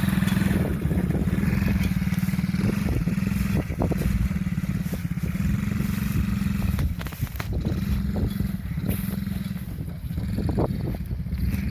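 Small 50cc engine of a children's quad bike running steadily as it rides, with a few short knocks or rattles along the way.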